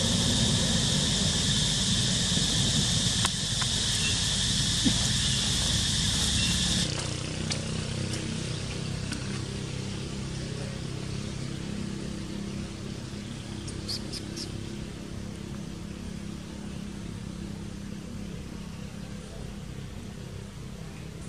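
Outdoor ambience. A steady high-pitched drone over a rushing low rumble changes abruptly at about seven seconds to a quieter, steady low hum with a few faint ticks.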